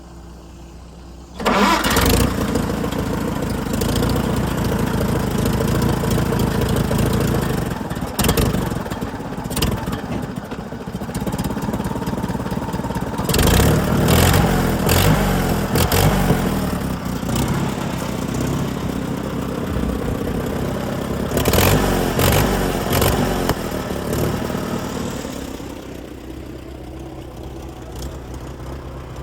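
International Harvester 140 tractor's four-cylinder gasoline engine starting suddenly about a second and a half in, then running, with two louder spells of higher revs before it settles to a lower idle near the end.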